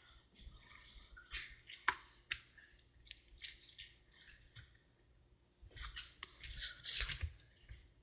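Slime being squeezed and stretched by hand: irregular sticky clicks and squelches, busiest near the end.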